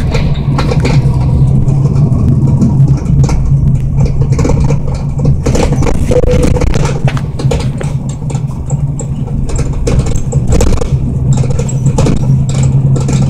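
Transit bus running down the road, heard from inside the passenger cabin: a steady low engine drone with frequent rattles and knocks from the bus body. The drone eases for a few seconds around the middle, then picks up again.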